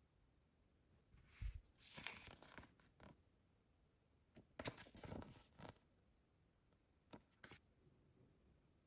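Handling noise from an unboxing: short bursts of rustling and scraping in three groups, the first with a low thump, and two brief scrapes near the end.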